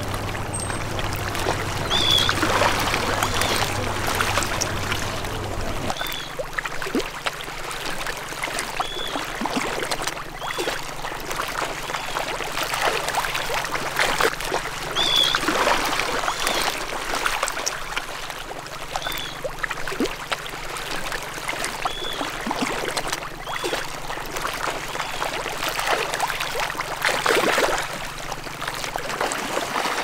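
Water splashing and trickling in irregular surges, with short, high bird calls now and then over a steady low hum that shifts higher about six seconds in.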